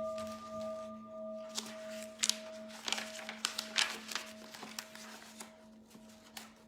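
A Buddhist bowl bell, struck just before, ringing out and slowly fading, its main tone pulsing with a slow, even waver and a higher overtone dying away about a second and a half in. Light clicks and rustles come and go over the ringing.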